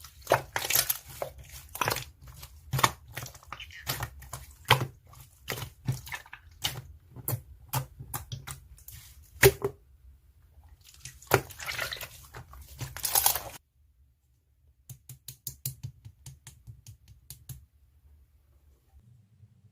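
Irregular sharp clicks mixed with rustling handling noise. They stop suddenly about two-thirds of the way through, and a few faint clicks follow.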